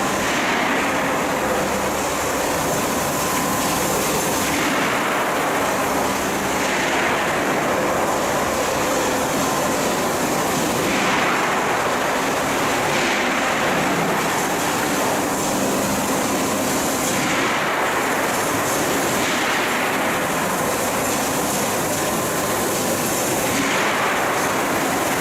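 Steel-coil cut-to-length line running, a steady dense mechanical clatter with a swelling hiss that comes back about every two seconds.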